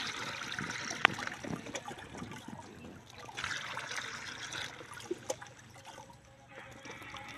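Liquid poured from a plastic bottle into the tank of a backpack pump sprayer, in two pours: one at the start and a second about three and a half seconds in. A sharp click comes about a second in.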